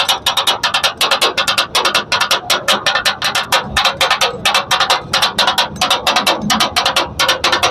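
Two steel blades clanging rapidly on a large flat iron tawa, katakat-style chopping and mixing chicken, about six metallic strikes a second in an uneven rhythm.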